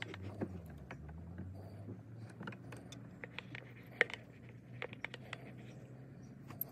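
Irregular small metal clicks and taps as a carburetor is worked by hand onto the 90cc engine of a Chinese ATV, a tight fit, with one sharper knock about 4 seconds in. A low steady engine hum runs underneath.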